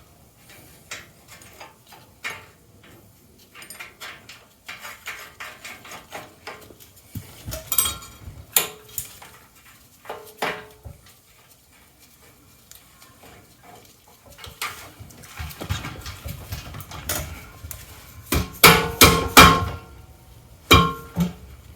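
Metal tools and scooter parts clinking and clanking in scattered, irregular knocks, with a louder cluster of ringing clanks about three quarters of the way through.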